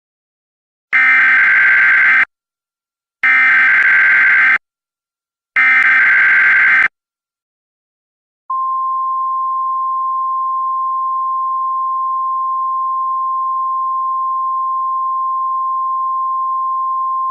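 Emergency Alert System tones: three loud, harsh data bursts of the SAME header, each about a second and a half long, then after a short gap a single steady alarm tone, the attention signal that announces the start of a warning.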